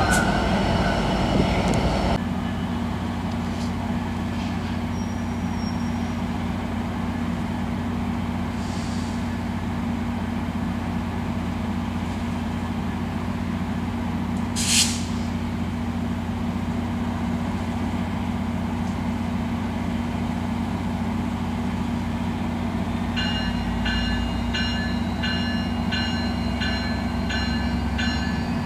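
Amtrak EMD F59PHI diesel locomotive passing close for the first two seconds, then a steady running hum with it standing at the platform. A short hiss comes about halfway through. Near the end its bell starts ringing, a little more than once a second.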